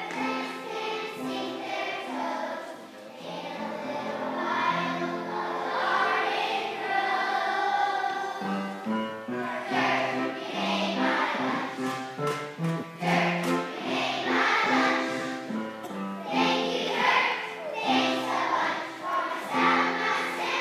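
A large group of young children singing together to a hoedown song with instrumental accompaniment.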